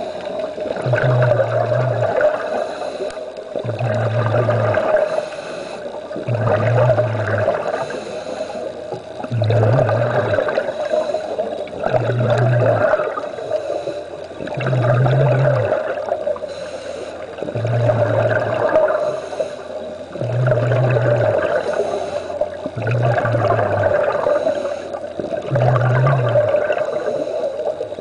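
Scuba diver breathing through a regulator underwater, in and out in a regular cycle that repeats about every two and a half seconds.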